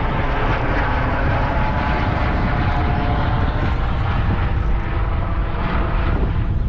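A motor running steadily, with a heavy low rumble.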